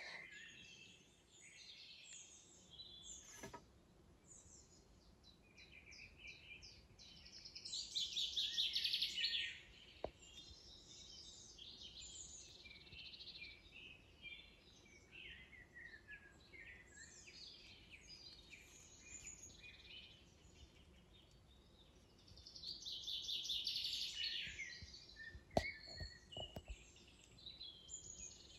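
Songbirds singing in woodland, with two louder rapid trilled songs, about eight seconds in and again about twenty-three seconds in. A single sharp click sounds near the end.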